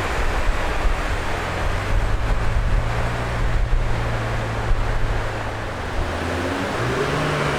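Ferrari 296 GTS twin-turbo V6 with a full Capristo exhaust running at low revs on a hub dyno after a pull, a low steady drone under a broad rushing noise. The revs lift slightly near the end.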